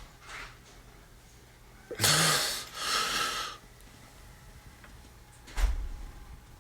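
A man's loud, forceful breaths, two in quick succession about two seconds in, as he strains to crack his neck, then a short sharp knock with a dull thump a little after five and a half seconds.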